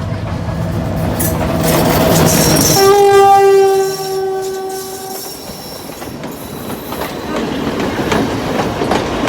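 A passing train: over its rising rumble the locomotive gives one steady horn blast about three seconds in, lasting some two and a half seconds, followed by the clickety-clack of the carriage wheels over the rail joints.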